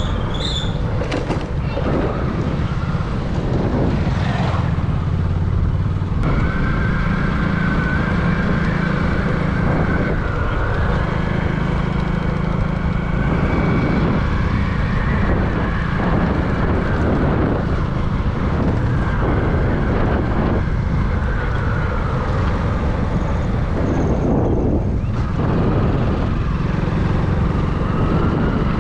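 A motor vehicle running steadily: continuous engine and road noise with a faint wavering whine.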